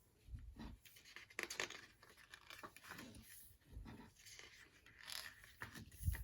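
Hands leafing through a small CD-album photo book and handling its packaging: scattered paper and plastic rustling and crinkling, with a few soft knocks.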